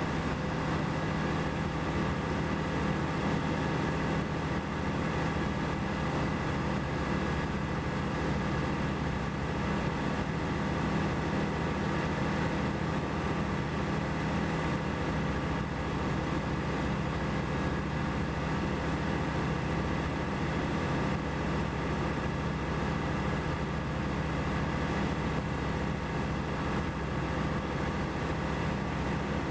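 Single-engine light aircraft's piston engine and propeller droning steadily in cruise, with rushing air, heard from a camera mounted on the outside of the plane beside the propeller.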